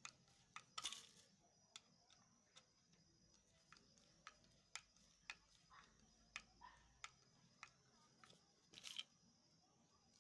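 Faint, sharp clicks, roughly two a second, of a flathead screwdriver turning a slotted screw into the wooden back of a broom head. Two brief, louder scratchy noises come about a second in and near the end.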